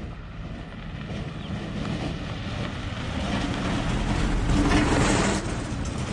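A car driving past on a dirt road: engine hum and tyre noise on the dirt, growing louder to a peak about three-quarters through.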